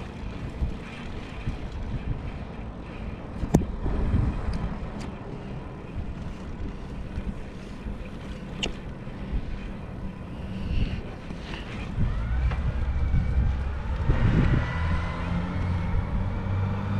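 Wind buffeting the microphone while riding a bike, a steady low rumble with a few sharp clicks. In the last few seconds a low, steady motor-vehicle hum grows louder.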